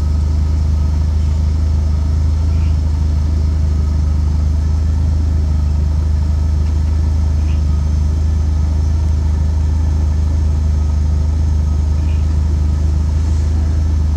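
Steady low rumble of a 4x4's engine running at low, unchanging revs while crawling over rocks, with a few faint short chirps above it.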